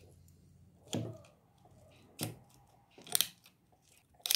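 Scissors snipping through thin plastic cut from a bottle: four separate short cuts about a second apart, the last two loudest.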